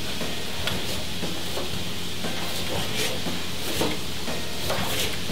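Chef's knife slicing through a white onion, the blade tapping a plastic cutting board with irregular light chops, over a steady background hiss.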